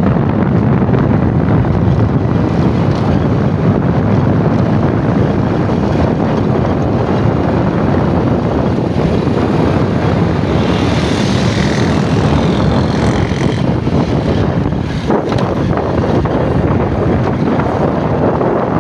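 A vehicle moving along a road, with wind buffeting the microphone: a loud, steady rushing noise.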